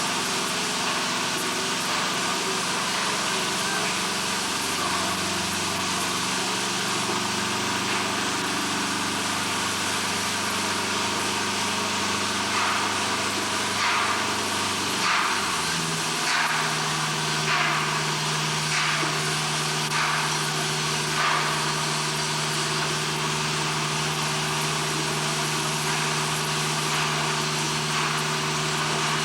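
An engine running steadily, its pitch shifting about halfway through. In the middle comes a run of about eight short, sharper sounds, roughly one a second.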